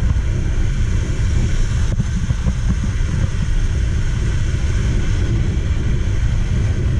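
Steady wind rush and low rumble on the microphone of a moving motorbike, with tyre noise from the wet road.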